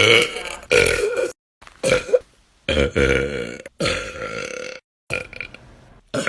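A string of loud burps from girls, about six in a row, each half a second to a second long with sudden cuts between them. Several have a held, wavering pitch.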